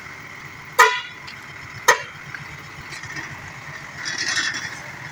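Two short horn toots from a diesel dump truck, about a second apart, over the engine idling.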